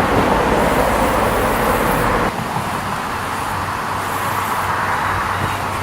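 Steady rumble of outdoor vehicle noise with no speech. About two seconds in the sound changes abruptly, and a low steady hum continues under the rumble.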